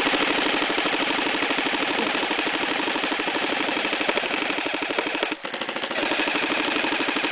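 Two airsoft guns firing on full-auto together, a fast continuous rattle of shots with a brief break about five seconds in.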